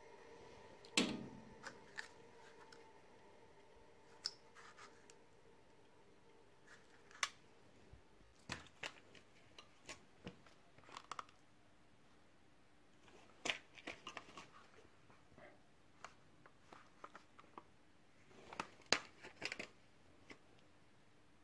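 Faint, irregular clicks and light knocks, strongest about a second in and again near the end, over a faint steady hum that fades away in the first several seconds.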